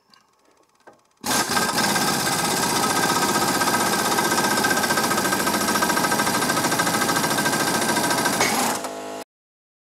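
An impact wrench hammering steadily for about seven seconds, driving the puller bolt to draw the golf cart's secondary clutch off its shaft, then stopping suddenly.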